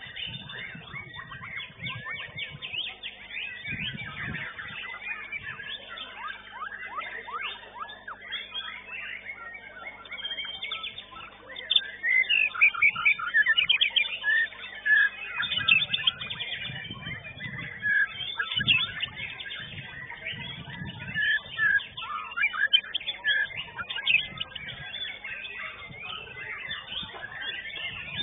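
White-rumped shamas (murai batu) singing in competition: a dense stream of rapid, varied whistles, trills and chattering notes, with the loudest and sharpest phrases a little before halfway. The sound comes through a CCTV camera's microphone and is thin, lacking the highest notes.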